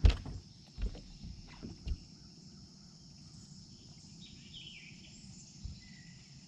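A sharp knock, then two softer knocks in the first two seconds, over quiet open-air ambience: a steady high insect drone and a few faint bird chirps midway.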